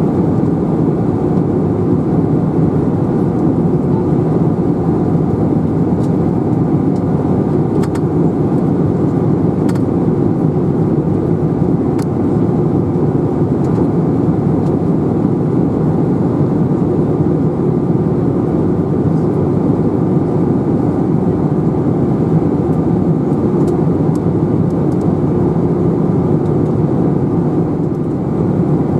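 Steady cabin noise of an Airbus A320 in flight, heard from a window seat over the wing: the low, even drone of the jet engines and rushing airflow, with a faint steady tone running through it.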